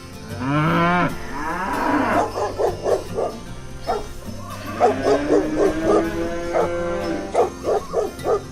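Cattle mooing several times, including a long held moo about five seconds in, over steady background music.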